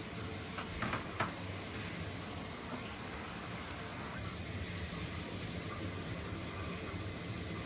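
Shower running: a steady hiss of falling water, with a couple of faint clicks about a second in.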